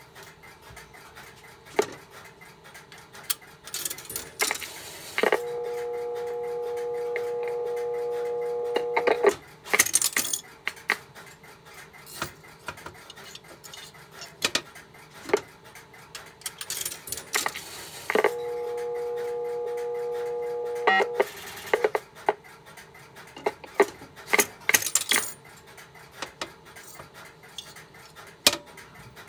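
Western Electric 1234G three-slot payphone: a coin rattles in, then dial tone comes over the line's monitor speaker and holds steady for about four seconds. It stops with a clatter of clicks as the handset is hung up and the central office returns the coin. The cycle happens twice.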